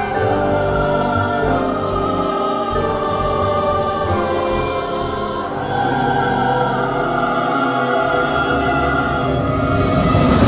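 Orchestral music from a virtual orchestra with a choir singing slow, sustained chords. It grows a little louder near the end.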